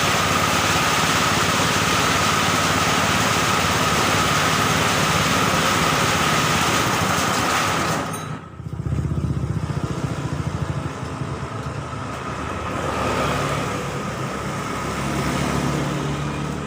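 Small engine running fast with a steady whine. About eight seconds in the sound drops off sharply, and a lower, uneven engine sound follows.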